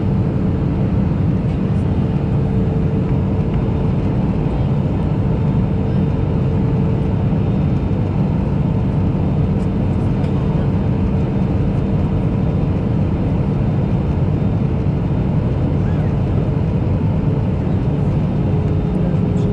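Steady in-cabin drone of an Airbus A320-214's CFM56 engines and airflow during descent: a dense low rumble with a steady hum on top. Near the end the hum steps slightly down in pitch.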